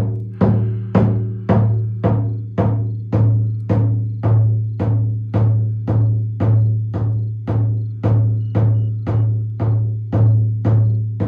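A 30 cm single-headed Lakota frame drum struck in a steady, even beat, about two strikes a second, each stroke leaving a low, humming ring that carries on between the strikes.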